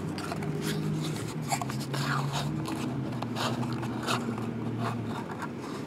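Trading cards and their cardboard box and paper sleeve being handled as the stack is slid out: a run of small irregular scrapes, crinkles and clicks.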